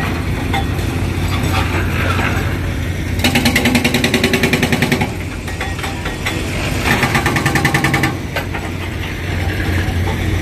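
Concrete breaker hammering in two bursts of rapid blows, about eight a second, the first about three seconds in and the second about seven seconds in, each lasting one to two seconds, over a steady low engine hum.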